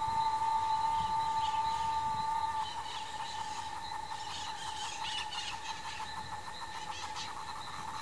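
Insect buzzing in one steady high-pitched drone that changes about two and a half seconds in to a slightly quieter, fast pulsing trill. Faint high chirps come and go in the middle.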